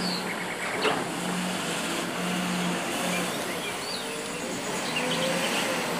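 JCB wheel loader's diesel engine running steadily as the machine drives with a loaded bucket, with a brief knock about a second in.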